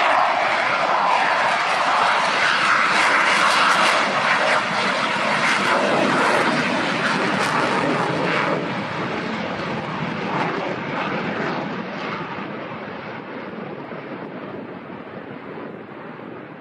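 Fixed-wing aircraft engine noise, loudest at first and fading slowly as the aircraft moves away, its higher sound thinning out as it goes.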